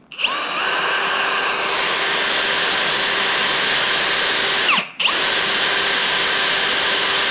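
Handheld power drill running a small, freshly sharp bit through a bolt clamped in a vise, boring a safety-wire hole. The motor whine rises as it spins up, stops briefly about five seconds in, then spins up again and runs steadily.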